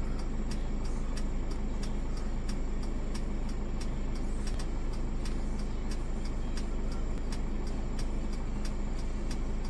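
Vehicle idling, heard from inside the cab: a steady low hum with a faint, regular ticking a few times a second.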